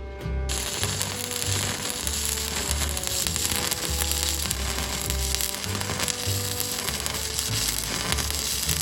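Stick (shielded metal arc) welding arc struck about half a second in, then crackling steadily as a bead is run in the flat 1G position, with background music underneath.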